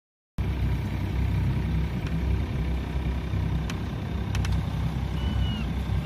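A small sailing yacht's inboard auxiliary engine running steadily with a low rumble, with a few sharp clicks. Near the end a gull calls several times.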